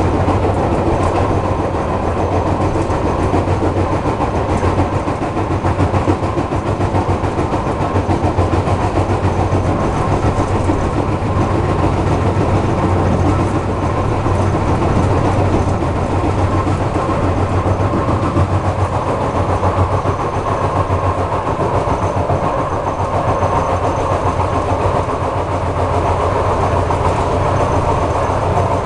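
Car of an ER2R electric multiple unit running on the line, heard from inside, with a rapid, continuous knocking from one of its bogies over a low, steady hum. The knocking is strange to the rider, who does not know its cause.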